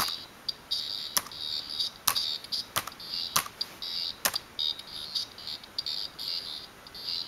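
Laptop keys pressed one at a time, about six separate clicks over the first four seconds, mixed with choppy high buzzy chirping from a piezo buzzer driven by an Arduino Uno's text-to-speech. The chirping grows denser in the last three seconds as the buzzer speaks the calculator's answer.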